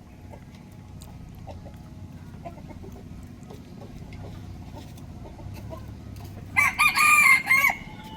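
Rooster crowing once near the end, a loud crow of about a second in a few broken segments, over faint clucking and a low steady background rumble.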